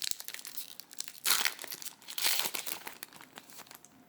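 Crinkling and rustling of card packaging being handled, with two louder bursts about a second and two seconds in, then dying down near the end.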